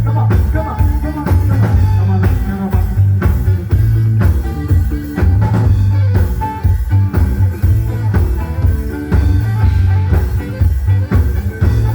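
Loud rock music with a driving bass line, drum kit and guitar, and some singing.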